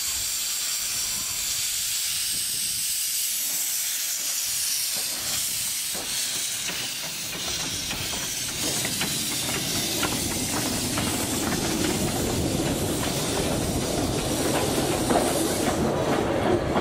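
Miniature 15-inch gauge steam locomotive hissing steadily as steam blows from its open cylinder drain cocks. From about halfway, lower running noise and scattered clicks join in as it moves off along the track.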